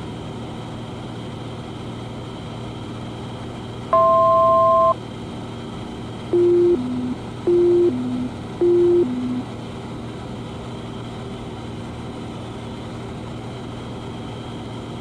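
Steady low drone of the Cessna 182's engine in the cockpit. About four seconds in comes a one-second electronic tone of two pitches, followed by three falling two-note beeps a little over a second apart.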